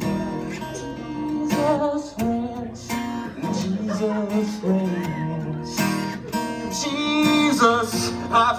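Acoustic guitar strummed through the PA, with a voice singing over it.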